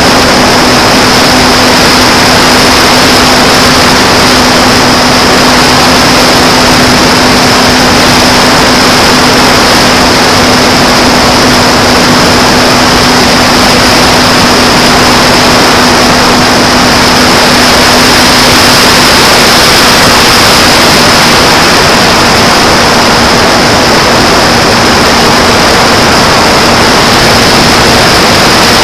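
Electric motor and APC 5.5×4 propeller of a Sky Surfer RC plane in flight, heard from a camera on board: a steady drone with a high whine over loud, rushing airflow noise, very loud throughout.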